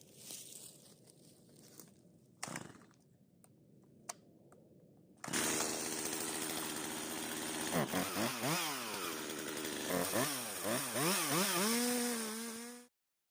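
Quiet handling rustles and a couple of light knocks. About five seconds in, a Stihl MS 391 two-stroke chainsaw comes in suddenly, running steadily, then is revved up and down repeatedly before cutting off abruptly near the end.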